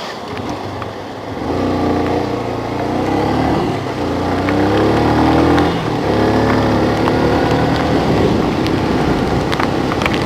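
A motor vehicle's engine pulls away and speeds up, its pitch rising, with two breaks like gear changes.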